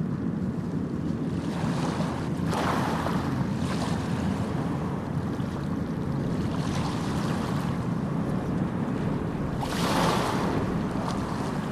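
Sea waves breaking and washing on a shore: a steady low rush, with a wave breaking about two and a half seconds in and a louder one near the end.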